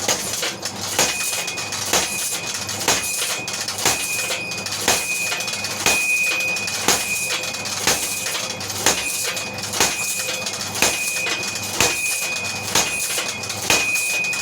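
Power hammer striking a hot 3/4-inch round bar, about one heavy blow a second. Each blow is followed by a short ringing tone, with lighter clicks between blows and a steady running noise underneath.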